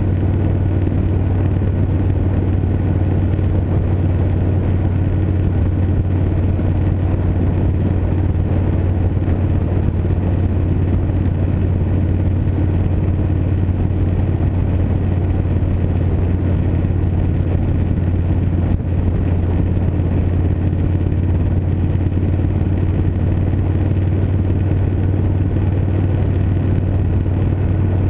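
2012 Victory Vegas 8-Ball's V-twin engine running at a steady cruise on the road: a constant low drone under an even rush of road and wind noise, picked up from a handlebar-mounted camera.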